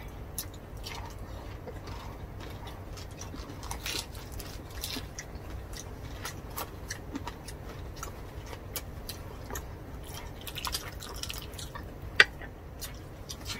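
Close-up eating sounds of roast pork: chewing and biting with many small wet clicks and smacks, and one sharper click about twelve seconds in.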